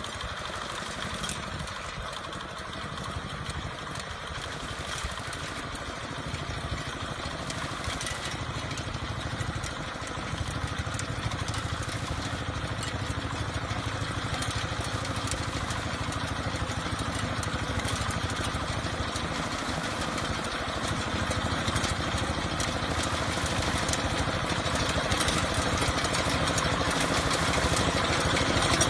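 Reaper binder's small engine running steadily as the machine cuts rice, with a light mechanical clatter, growing gradually louder toward the end.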